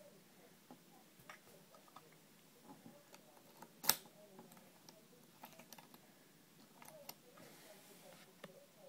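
Small metallic clicks and taps from handling an EVVA oval lock cylinder held in a vise, with one sharp, much louder click about four seconds in as fingers work at the keyway.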